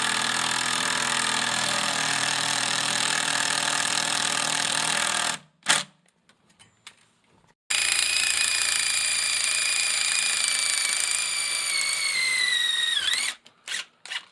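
Power drill driving screws in two long runs of several seconds each, the motor's whine dropping in pitch as the second screw seats, with short trigger blips after each run.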